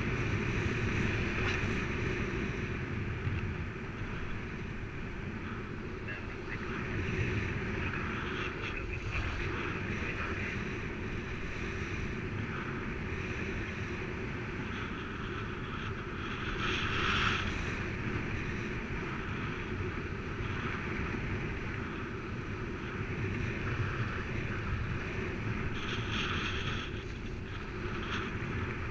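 Airflow buffeting the microphone of a paraglider in flight: a steady rushing wind noise, swelling louder in gusts about two-thirds of the way through and again near the end.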